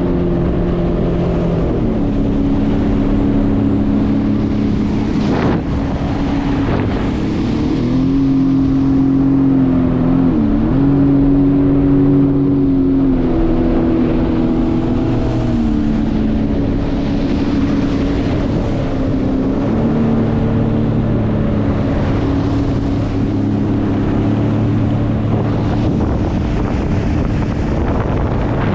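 Jet ski engine running continuously under way, its note stepping up and down with the throttle, with a brief dip and recovery about ten seconds in. Wind rushes on the microphone throughout.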